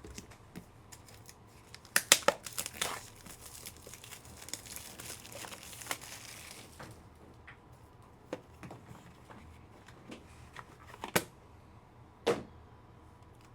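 Plastic packaging crinkling and being torn open by hand, with a few sharp clicks and taps, about 11 and 12 seconds in, as cards are handled.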